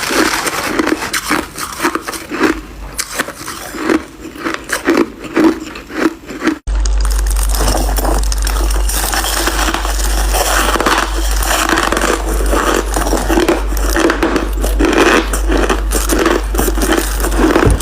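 Crunchy white crushed ice being bitten and chewed close to the microphone, in repeated crunches about two a second. About seven seconds in the sound cuts abruptly to another take of the same chewing with a steady low hum underneath.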